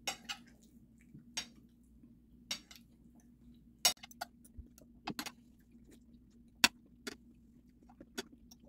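Close-up eating sounds from chewing and gnawing boiled pork meat off a bone held in the hands: a dozen or so short, sharp smacks and clicks, the loudest about four seconds in and about two-thirds of the way through, over a faint steady hum.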